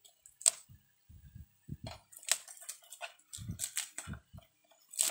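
Clear plastic stretch wrap being peeled and torn by hand off a battery charger: irregular sharp crinkles and crackles with a few soft handling bumps in between.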